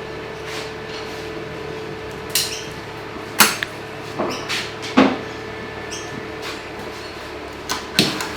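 A handful of sharp knocks and clatters, about six, over a steady hum; the loudest come about three and a half and five seconds in, with two more near the end.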